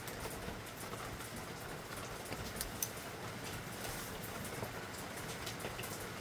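A steady, light crackling hiss with many small scattered ticks, a couple of them sharper a little before the middle.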